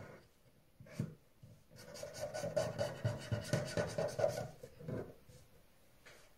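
Pen drawing quick zigzag strokes on a paper card on a wooden table: a fast run of scratchy back-and-forth strokes lasting about three seconds, after a single sharp tap about a second in.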